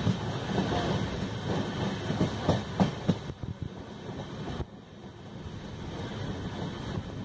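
Indian Railways passenger train running along the line, heard from a coach window: wheels clacking over rail joints over the steady rumble of the running gear. The noise drops away a little past the middle and then slowly builds again.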